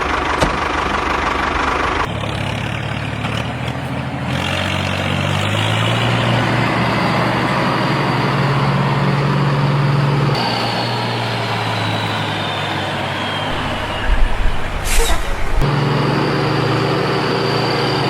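Heavy truck-like engine running steadily, in several abruptly spliced stretches. A high whine slowly falls in pitch in the middle, and a short sharp hiss comes about 15 seconds in.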